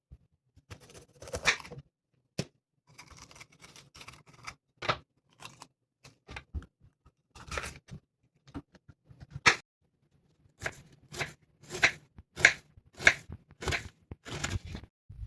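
A string of short, separate crunching noises, roughly one to two a second, with brief silences between them.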